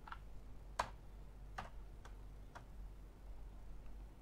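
Computer mouse clicking: four sharp clicks spaced a little under a second apart, with a fainter fifth, over a faint low hum.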